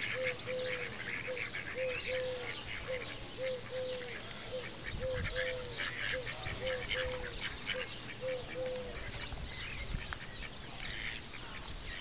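Mallards and their ducklings calling on the water: a series of short low calls, about two a second, that stops about nine seconds in, over a lot of high, quick peeping.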